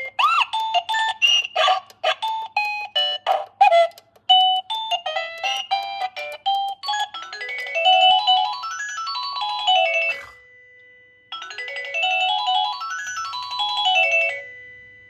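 Electronic doorbell chime playing its tunes: a quick melody of short electronic notes, then a run of notes climbing and falling back. It cuts off about ten seconds in, and the same up-and-down run plays again a second later, fading out near the end.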